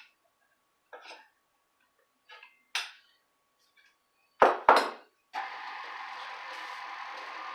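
Light clinks of a utensil against a mixing bowl, then two sharp knocks about four and a half seconds in, then an electric mixer starts about five seconds in and runs steadily through the cake batter.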